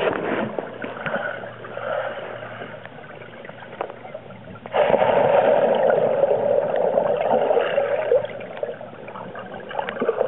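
Swimming-pool water heard underwater through the camera: a muffled sloshing and gurgling with scattered small clicks, turning suddenly louder about five seconds in with a steady rush of bubbles and churning water as the swimmer moves close.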